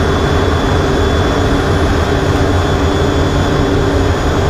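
Carrier fighter jet's engines running steadily at launch power, ready for the catapult shot, heard from inside the cockpit: a loud, even rush with a steady whine over a deep rumble.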